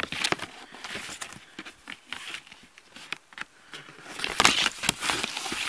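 Packaging being handled: rustling and crinkling with scattered light taps and clicks, busier and louder for the last second and a half.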